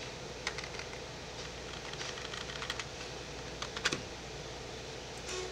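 Computer keyboard typing: scattered keystrokes in short runs, the loudest cluster a little before four seconds in, over a faint steady hum.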